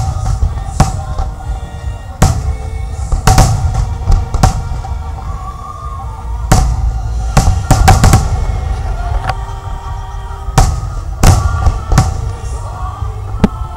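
Aerial fireworks exploding in a display, about a dozen sharp bangs at irregular intervals, some ringing on briefly, with music playing underneath.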